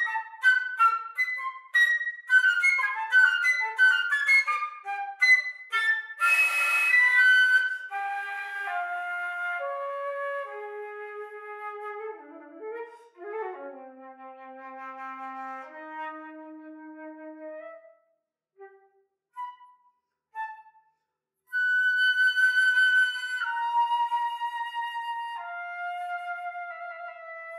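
Solo concert flute playing contemporary music: quick, short, leaping notes at first, a breathy, airy note about six seconds in, then slower notes falling into the low register. After a sparse stretch of isolated short notes with gaps, loud held notes step downward near the end.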